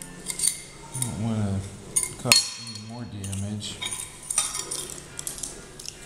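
Small sheet-metal drum switch parts clicking and clinking against pliers and the metal bench top as they are worked by hand, with one sharp click a little over two seconds in. A low hum of a voice comes twice.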